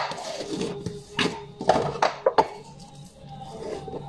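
Washing dishes by hand: a sponge scrubbing glassware, with a handful of sharp clinks of glass and dishes knocking together between about one and two and a half seconds in.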